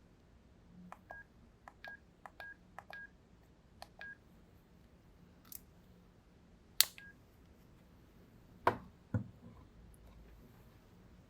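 NEC N341i mobile phone keypad being pressed: about half a dozen quick key presses over three seconds, each a click with a short high beep. Then, after a pause, come a few louder separate clicks and knocks, the loudest about two-thirds of the way in.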